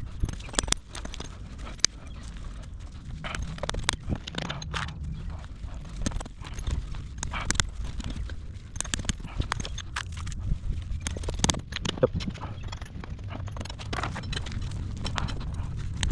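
Horse's hooves knocking and shifting on hard ground: irregular sharp clicks at uneven spacing, over a steady low rumble.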